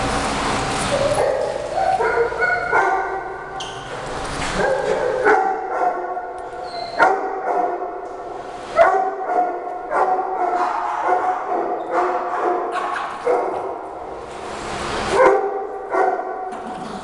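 Small dogs, Shih Tzus, barking and yapping at one another in a play fight, with many short high barks coming in quick irregular volleys.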